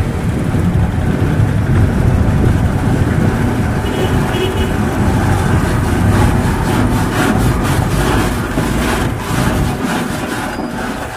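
Heavily loaded multi-axle truck's diesel engine rumbling as the truck drives slowly past close by. In the second half a rapid crackling joins the rumble.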